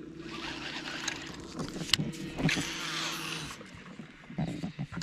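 A cast with a baitcasting reel: the spool whirs as line pays out for about three seconds, with a sharp click near the middle, then it stops and a few soft knocks follow. A steady motor hum runs underneath and fades as the whirring ends.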